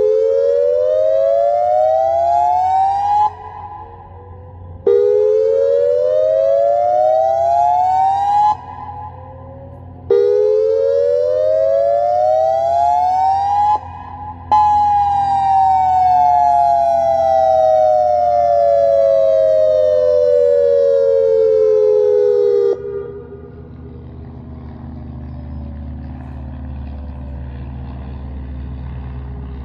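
Federal Signal Modulator 8032B electronic outdoor warning siren sounding a whoop: three rising sweeps of about three and a half seconds each with short gaps between them, then one long falling wind-down of about eight seconds that cuts off suddenly. After that only a low background rumble is left.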